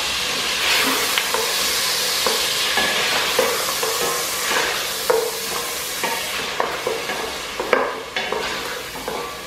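Mutton pieces with ginger-garlic paste sizzling in hot oil in a stainless steel pot while being sautéed (bhuna), stirred with a wooden spoon that knocks now and then against the pot. The sizzle eases a little near the end.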